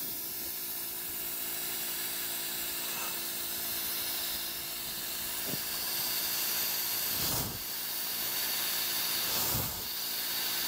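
Compressed air hissing steadily from a nozzle blown into the low band servo apply passage of a Powerglide automatic transmission during an air pressure check, over the steady hum of a homemade air pump. Two low thumps come about two seconds apart near the end, the servo piston applying the band.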